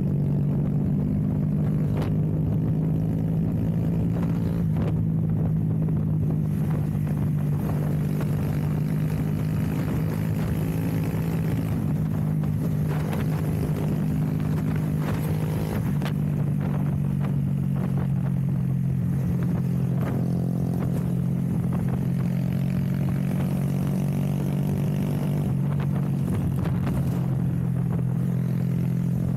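Honda Grom's single-cylinder engine, fitted with an aftermarket cam and a 2 Brothers Racing exhaust, running under way at a steady speed, its pitch holding nearly level throughout.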